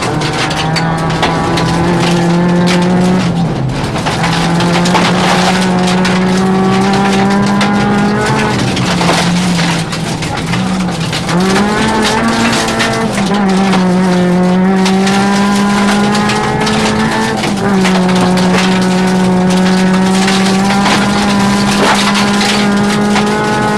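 Rally car's engine heard from inside the cabin, held at high revs, its pitch dipping and climbing again several times at gear changes and lifts, over steady tyre and gravel noise with stones ticking against the car.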